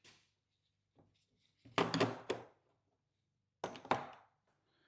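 Two short bursts of knocks and rattles, about two seconds in and again near four seconds, as hard objects are picked up and set down.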